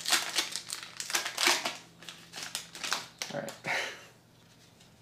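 Foil Pokémon booster-pack wrapper crinkling and tearing as its sealed top is ripped open by hand, in repeated rustling bursts that stop about four seconds in.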